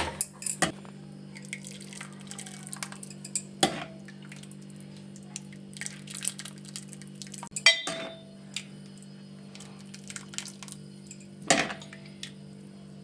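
A serving utensil clinks and scrapes against a pot and bowl as soup is dished out. There are sharper metallic knocks about 4, 8 and 11.5 seconds in, over a steady low hum.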